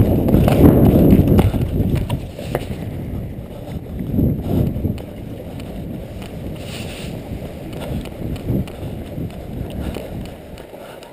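Footsteps of a person running, loud and rumbling for the first two seconds, then quieter footfalls with scattered soft thumps.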